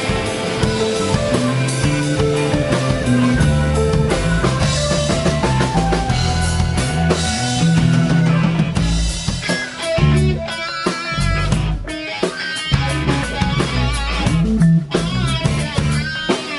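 Rock band playing an instrumental passage without vocals: guitar over drums and low bass notes. In the second half, high notes are held and waver.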